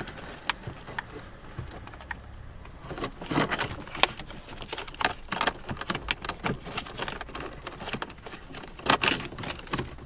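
Quick, irregular clicking, tapping and rustling of wiring cables and plastic connectors being handled and pushed into the plastic cavity behind a car dashboard's head unit. It starts sparse and gets busier about three seconds in.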